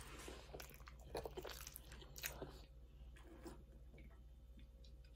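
Faint chewing and crunching of a mouthful of nachos with tortilla chips and pork rinds, mostly in the first couple of seconds, then only a few small ticks.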